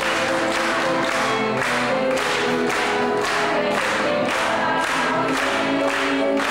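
Live music: violin and piano with singing voices, over a steady beat about twice a second.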